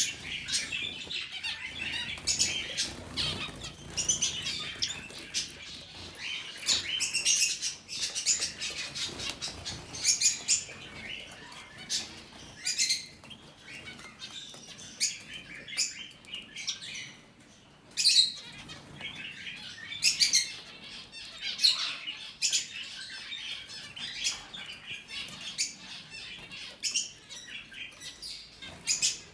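A mixed flock of zebra finches and canaries in an aviary chirping constantly, with many short calls overlapping.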